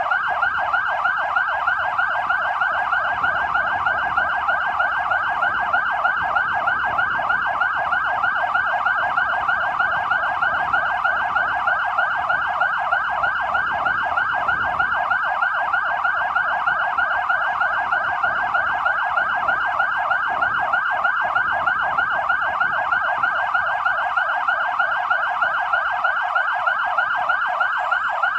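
Fire engines' electronic sirens sounding without a break in a fast, repeating up-and-down sweep, held as the tribute signal at 'Hour W' of the Warsaw Uprising anniversary.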